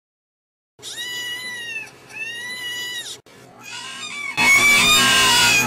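Cats meowing: two drawn-out, arching meows, then, after a short gap, kitten meows that come in quick succession and overlap, loudest near the end.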